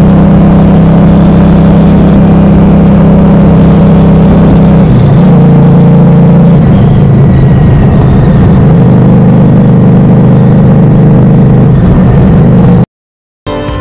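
Harley-Davidson motorcycle engine running loud and steady at cruising speed on the highway. The note shifts about five seconds in, and the sound cuts off suddenly near the end.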